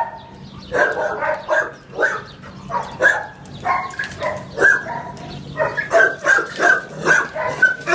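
Kennel dogs barking over and over, short barks coming a few times a second with hardly a pause.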